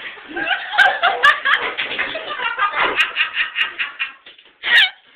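People laughing and snickering amid indistinct talk, the laughter coming in quick repeated pulses, with a short loud outburst near the end.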